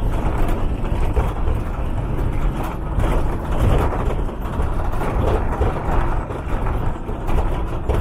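Steady road noise of a moving vehicle on a rough dirt road, heard from inside the vehicle: engine and tyre rumble with a continuous low noise.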